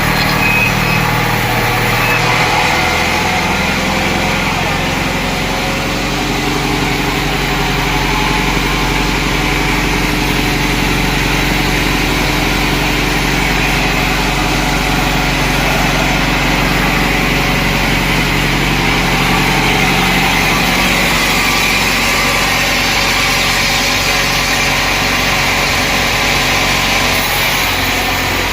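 Sawmill machinery running steadily with an engine-like drone, its pitch shifting about two seconds in and again near the end.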